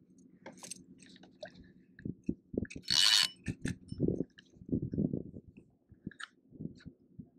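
Rod and Penn spinning reel handled close to the microphone: scattered clicks and low knocks, with a short loud hissing rush about three seconds in.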